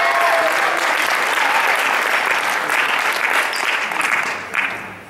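Audience applauding, with a few whoops in the first moments, the clapping dying away near the end.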